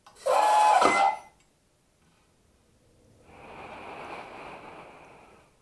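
Servo-driven faceplate of a 3D-printed Iron Man helmet closing, with the mechanical sound effect from its built-in sound module: a loud burst lasting about a second near the start, then a softer hissing swell that rises and fades over the last few seconds.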